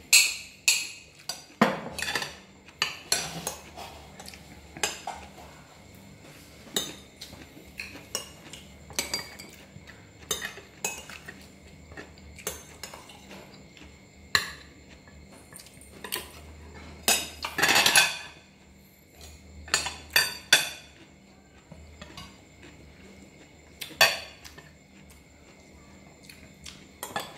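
Metal spoons and forks clinking and scraping against ceramic plates as people eat. The sharp clicks come at irregular intervals, with a longer, louder scrape about two-thirds of the way through.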